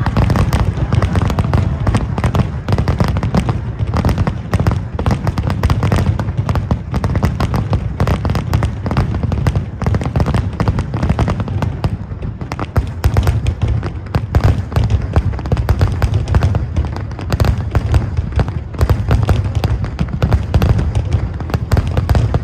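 Fireworks going off in rapid succession: a dense, continuous barrage of bangs and crackling with deep booms underneath, with no let-up.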